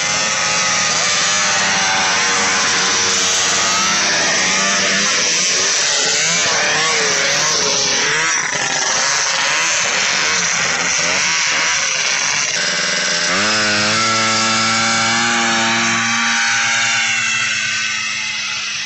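Two-stroke vintage snowmobile engines. First a sled runs with its pitch wavering up and down on the throttle. About two-thirds in, a sled launches at full throttle: its engine note jumps up and holds high, then fades near the end as it pulls away down the strip.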